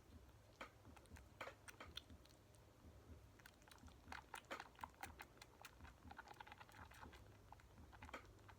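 Newborn bottle-fed kitten suckling on a bottle nipple: faint, irregular wet clicks and smacks.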